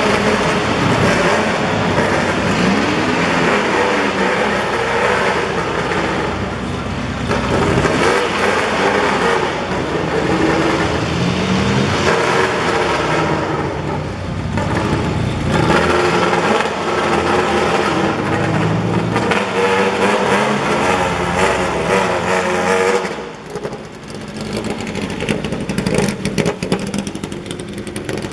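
Race-track cars running hard at speed, engines revving with the pitch repeatedly rising and falling. The sound eases off briefly about 23 seconds in, then picks up again.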